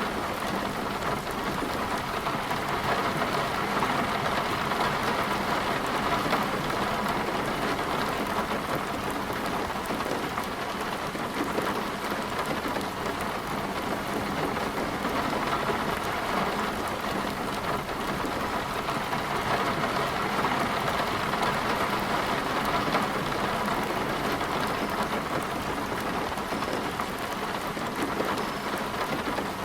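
Heavy rain falling steadily, an even unbroken downpour.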